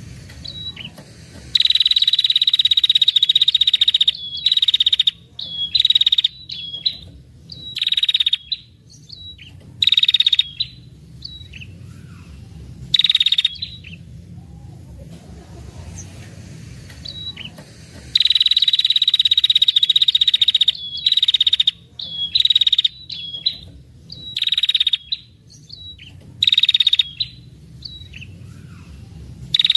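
Female red-headed prenjak (a tailorbird) calling: two long, rapid buzzy trills of about two and a half seconds each, with many short chattering bursts between them, all high-pitched. It is a breeding-season female call used as a lure for males.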